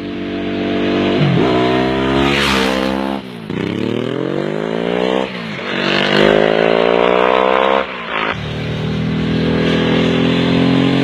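Ducati 999 superbike's L-twin engine accelerating hard through the gears. Its pitch climbs in long pulls and drops sharply at each upshift, about three, five and a half and eight seconds in, then runs at a steadier high note near the end.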